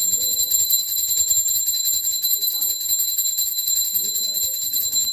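Puja bell rung rapidly and without pause, a steady high-pitched ringing, with faint chanting voices underneath.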